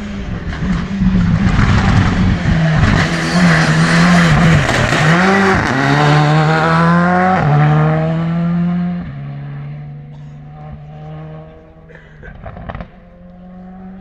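Rally car driven flat out through a bend, its engine revving hard with sudden drops and steps in pitch at the gear changes. After about nine seconds the engine note turns much quieter and steadier as the car pulls away.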